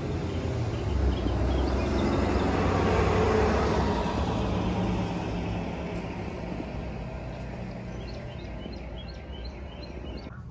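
A motor vehicle passing on the road, its engine hum and tyre noise growing louder and then slowly fading away.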